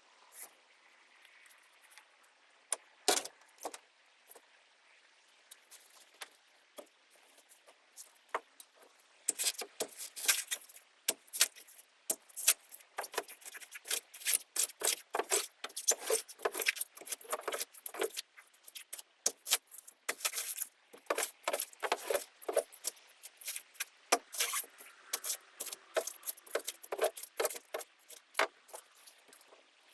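Hand-tool demolition of rotted boat stringers and foam: irregular scraping, cracking and knocking as wood, fiberglass and foam are pried and torn out. It starts sparsely with one sharp knock, then turns into a dense run of scrapes and clicks.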